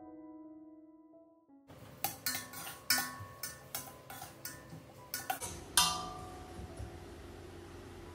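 Soft piano music fades out. Then a metal spoon knocks and scrapes against the inside of a stainless steel cooking pot as the masala is stirred: a quick run of sharp clinks, the loudest about six seconds in, over a steady low hiss.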